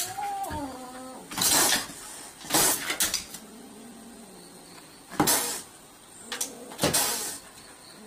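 A kitten gives one falling yowl at the start. Then come about five short, loud, noisy bursts: a dog's paws striking and scraping the outside of a car door, with the kitten hissing back.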